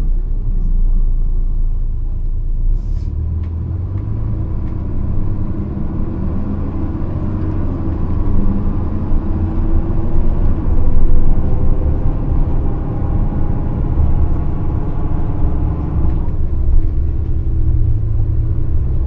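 Nissan Diesel KC-RM211GSN city bus with an FE6E diesel engine and a JATCO three-speed automatic, running with a heavy, unusually loud rumble; this bus is known for its abnormal running noise. The engine note climbs over the first half as the bus pulls, holds, then eases off near the end.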